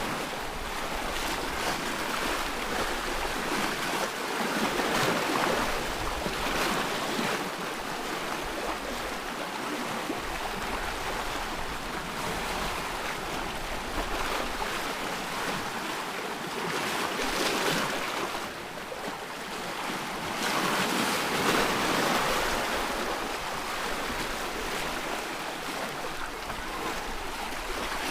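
Ocean waves breaking and washing on a shore, a continuous rushing surf that swells and eases every few seconds.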